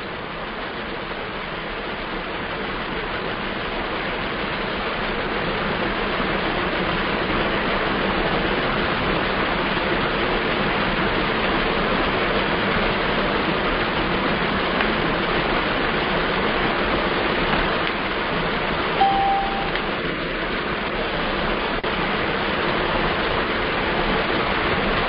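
Steady loud rushing noise that builds over the first few seconds and then holds, with one short high beep about 19 seconds in.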